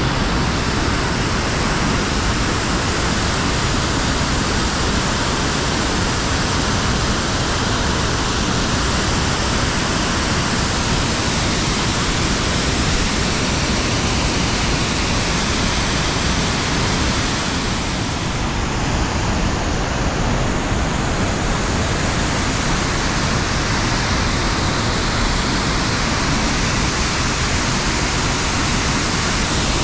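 Loud, steady rush of muddy floodwater through a rocky gorge, with runoff pouring over the rock ledges in small falls.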